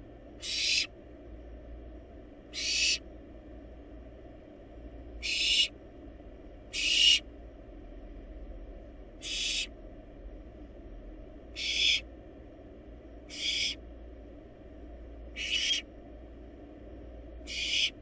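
Barn owl nestling calling: nine harsh, hissing screeches, each about half a second long, about one every two seconds.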